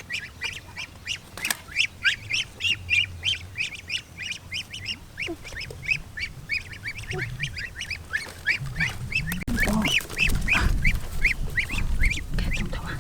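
Ducks calling in a fast, steady run of short high-pitched calls, several a second. A low rumbling, knocking noise joins in about two-thirds of the way in and grows louder.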